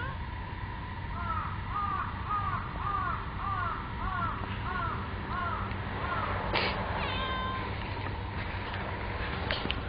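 A bird calls in a quick, even series of about a dozen rising-and-falling notes. About six and a half seconds in comes one sharp sneeze from a cat.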